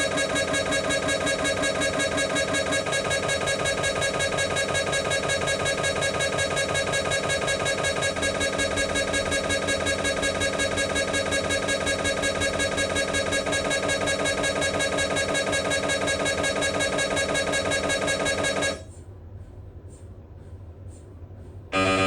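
Siemens Magnetom Spectra 3 T MRI scanner's gradient coils running an imaging sequence: a loud, rapid, steady buzzing pulse train with many overtones, whose pattern changes about eight seconds in. It stops a few seconds before the end, leaving a handful of faint knocks, and then a new sequence starts with a different steady tone.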